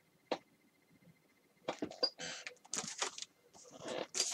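Old magazines being handled: paper pages and covers rustling and sliding against each other in a run of short, irregular bursts from just under halfway through, after a single soft click about a third of a second in.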